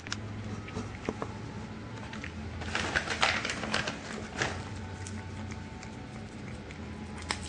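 A cat crunching freeze-dried minnow treats: scattered sharp crunches and clicks, bunched together in a quick run from about a third of the way in to past the middle, over a low steady hum.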